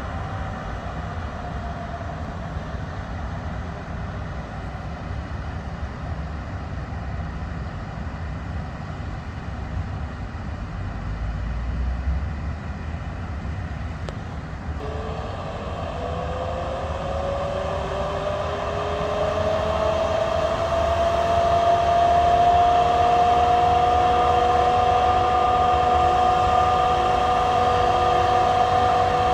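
Class 18E electric locomotives with their motors whining. A whine falls away at the start over a low rumble; about halfway through a new whine rises in pitch and settles into a steady high tone, growing louder.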